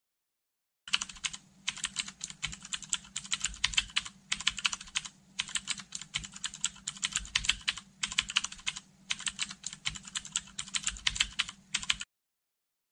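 Computer keyboard typing: rapid key clicks in several runs separated by short pauses. It starts about a second in and cuts off abruptly near the end.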